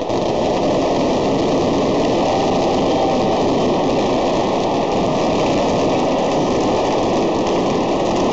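Stadium crowd roar mixed with crackling fireworks and pyrotechnics. The noise jumps up suddenly at the start as the display goes off, then holds loud and steady with a dense crackle throughout.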